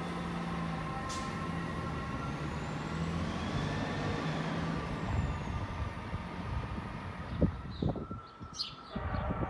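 Amtrak electric train moving away down the line: a steady rumble with a low hum and a few held tones that slowly thin out. A couple of sharp knocks come near the end, followed by short bird chirps.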